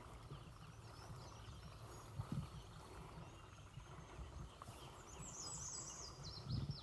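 Songbirds singing, with a quick run of repeated high, rising notes late on, over faint low rustling and a couple of soft thumps from hunters' footsteps.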